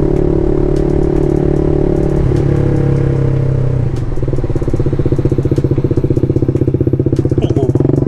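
BMW G310 RR's single-cylinder engine running through an aftermarket exhaust as the bike slows down. The engine note changes about two seconds in, and from about four seconds in it runs at lower revs with a fast, even pulsing exhaust beat.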